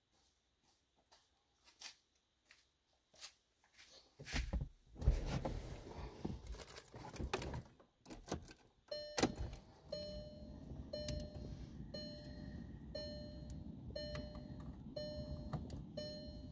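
Inside a 2013 Volkswagen Golf, a few faint clicks, then the jingle and clunk of keys in the ignition. After that comes a steady low hum with a short dashboard warning chime repeating about once a second.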